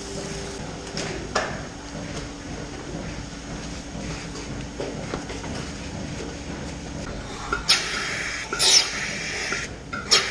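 Milking-parlour machinery running with a steady hum, with a few metal clanks and hoof knocks on the tiled floor. Near the end come several short, loud hisses in quick succession.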